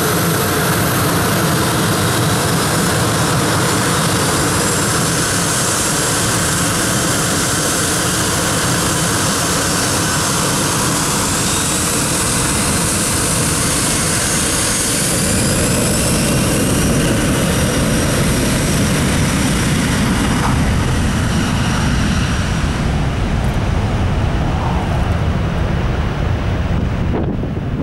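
Boeing 737-300's CFM56 jet engines at take-off power: a loud, steady jet roar with a faint whine that falls in pitch as the airliner goes by. The low rumble grows about halfway through, and the high hiss drops away a few seconds before the end as the aircraft moves off.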